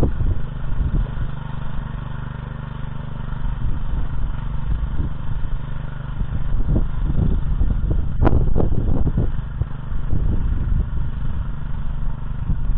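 Petrol walk-behind tractor (motoblock) running under load as it tills soil, a steady engine hum with clattering, and one sharp knock about eight seconds in.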